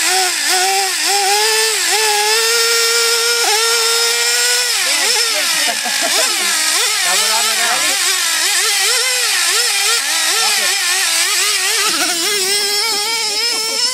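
Traxxas Revo nitro RC truck's small glow-fuel engine revving up and down in repeated blips while the truck is held in the air, wheels spinning free. Near the end it is set down and pulls away under throttle.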